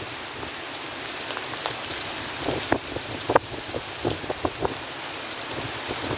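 Heavy hurricane surf breaking with wind-driven rain: a steady, even hiss of water with scattered sharp taps and crackles, the strongest near the middle.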